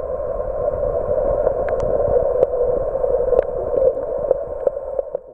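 River water heard through a camera held underwater: a steady, muffled rushing with scattered light clicks and knocks.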